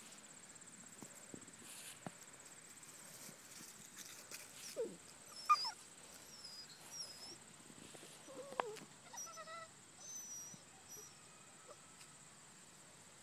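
Old English Sheepdog puppies at play, giving a few short yips, some falling in pitch, through the middle stretch.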